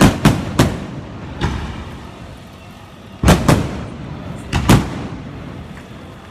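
Aerial fireworks shells bursting in a series of sharp, echoing bangs. Three come quickly in the first second, then a fainter one, then pairs about three and about five seconds in.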